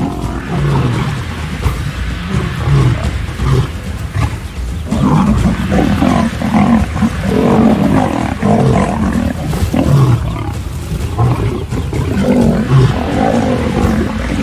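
Lions fighting: a continuous run of loud, short growls and roars, one after another with barely a pause.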